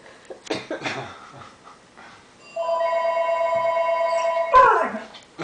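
Telephone ringing with a steady, warbling electronic two-tone ring for about two seconds, preceded by a few short knocks. As the ring stops, an Afghan hound lets out a loud howl that falls in pitch.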